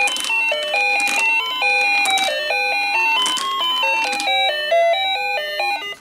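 A toy gumball machine playing its electronic jingle while it dispenses a gumball: a quick, tinkly melody of single beeping notes, several a second, that cuts off suddenly near the end.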